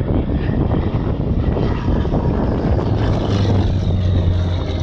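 Aerobatic display plane's engine droning overhead, with a steady low hum that grows stronger about three seconds in.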